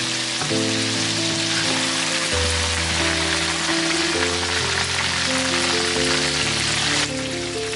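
Chicken wings deep-frying in a wok of hot oil: a dense, steady sizzle that softens a little near the end. Background music of sustained chords plays over it.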